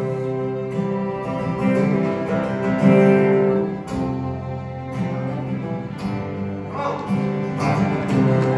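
Acoustic guitar strummed, its chords left to ring, in a live solo performance of a slow song.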